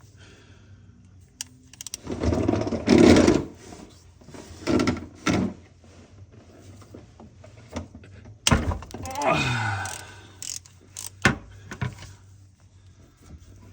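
Work noise from handling tools and parts: scattered clunks, rattles and knocks, with a sharp knock about eight and a half seconds in followed by a short sound falling in pitch.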